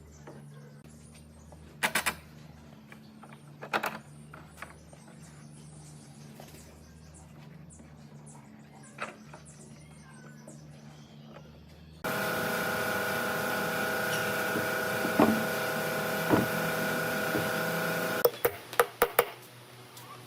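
A few scattered light taps, then a small electric motor, likely a power tool, starts abruptly about twelve seconds in, runs steadily for about six seconds and cuts off, followed by a quick run of knocks.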